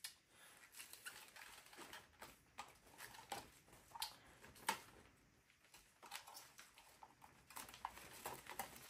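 Faint crinkling and rustling of a clear plastic bag being pulled off a model locomotive, in scattered short crackles with a brief lull near the middle.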